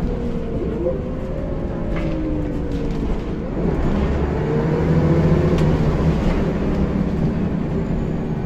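Scania L94UB single-deck bus heard from inside the saloon: its diesel engine and driveline run under way, with whining tones that sink and then climb again. The engine grows louder about four seconds in as the bus accelerates, with a couple of light rattles from the body.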